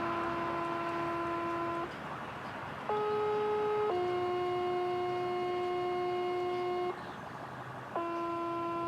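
Two-tone sequential paging tones over a radio speaker: a held tone ends about two seconds in, then after a short pause a one-second tone jumps straight to a second steady tone held about three seconds, and another tone pair starts near the end. These are the dispatch tone-outs used to page fire departments and set off their sirens.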